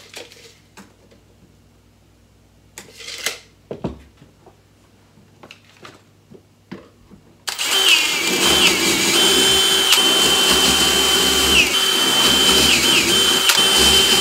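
A few light clicks and rattles of handling, then about halfway through a cordless drill starts and runs loudly and steadily, boring handle holes through a drilling jig into a painted plywood drawer face. Its high whine dips briefly in pitch several times as it cuts.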